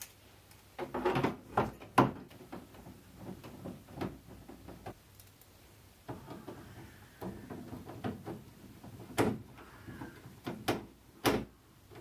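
Plastic filter frame of a portable air conditioner being handled and fitted back into the side of the plastic casing: scattered light clicks and knocks, with a cluster about a second in and more near the end.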